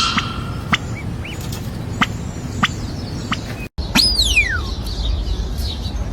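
Bird sounds over a low background: scattered sharp clicks and a couple of short chirps. After a brief dropout about four seconds in, a bird gives a loud, clear whistle that slides steeply down in pitch over nearly a second.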